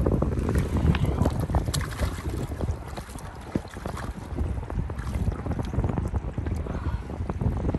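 Strong wind buffeting the microphone in an uneven, gusting rumble, with scattered small clicks through it.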